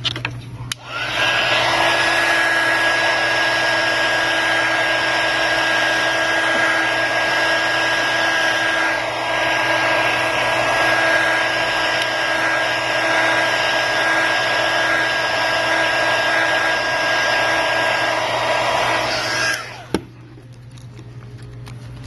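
Handheld hot-air tool blowing steadily with a thin whine over the rush of air. It is switched on about a second in and cuts off near the end. It is heating the phone's cracked screen glass to soften the adhesive so the shards can be lifted off.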